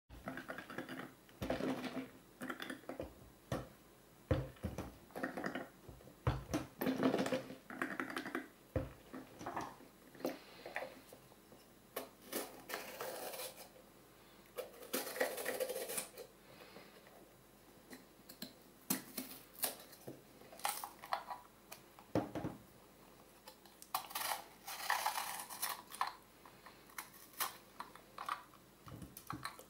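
Small kitchen knife cutting into a bell pepper, with peppers knocked and set down on a hard countertop: irregular taps and knocks, and a few scratchy crunching stretches of about a second as the blade saws through the pepper wall.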